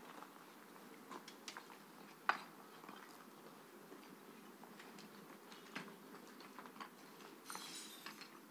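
Faint footsteps crunching on rubble and debris, scattered small clicks with one sharper knock about two seconds in, and a brief rustle near the end.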